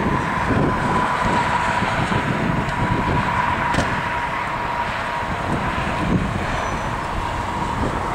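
Steady road noise from a car moving slowly along a road, a low rumble with a faint steady high whine running through it.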